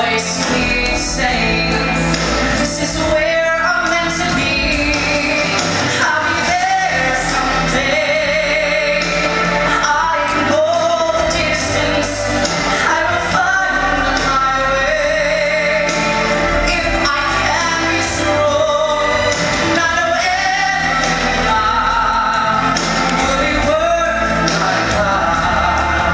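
A vocalist singing a pop song with vibrato on held notes, over amplified instrumental accompaniment.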